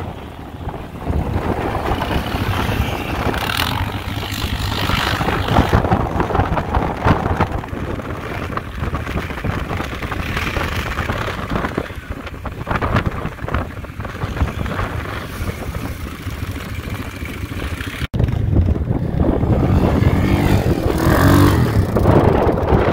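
ATV engine running while riding, with wind buffeting the microphone. The sound cuts out for an instant about three-quarters of the way through, then carries on.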